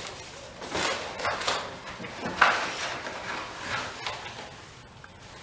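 Long cardboard box of plastic wind deflectors being handled: a few scraping, rustling bursts, the loudest about two and a half seconds in, quieter near the end.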